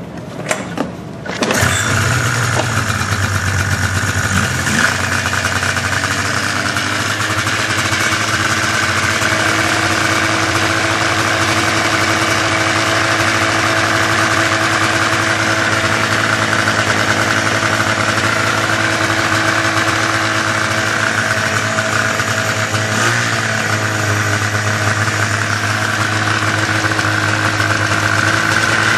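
Arctic Cat El Tigre snowmobile's two-stroke engine catching after a brief crank, then idling high and steady, at about 3,000 rpm, a sign of a vacuum leak at the carb boots or crank seals that makes it run lean. The engine note wavers briefly about three quarters of the way through, as ether sprayed around the suspect seals changes its pitch.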